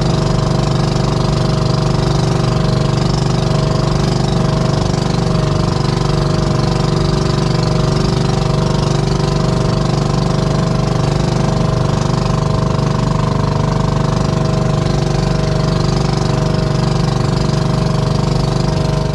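Outrigger bangka's inboard engine running steadily while the boat cruises across open water.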